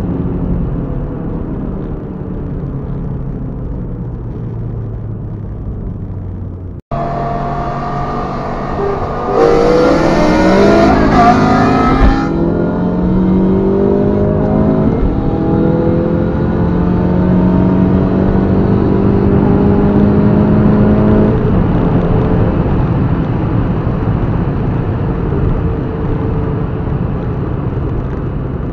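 Tuned car's engine heard from inside the cabin: a steady cruising drone, then, after a brief break in the sound about seven seconds in, hard acceleration with the engine note rising in pitch. It holds high revs until about three-quarters of the way through, then eases back to a lower drone.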